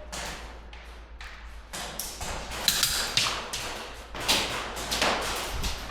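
Airsoft guns firing in quick bursts of sharp cracks, with BBs smacking into hard surfaces, in a large echoing indoor hall.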